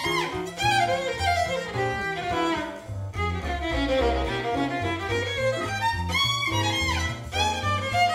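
Violin playing a fast swing-style jazz solo: long, unbroken runs of quick notes.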